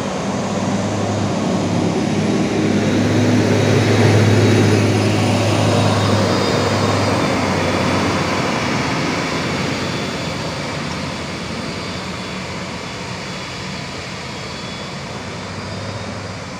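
Tour bus diesel engine labouring under load up a steep incline, with the bus seeming barely able to make the climb. The engine note is loud and steady, swells for the first few seconds, then slowly fades as the bus pulls away.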